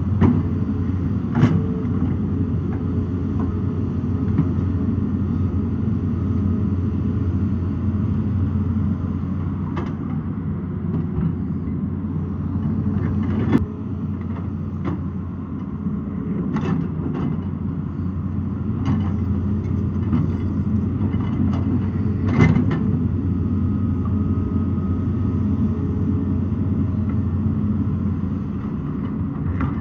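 Excavator's diesel engine running steadily under load, with sharp knocks of the bucket or tracks on rock about half a dozen times.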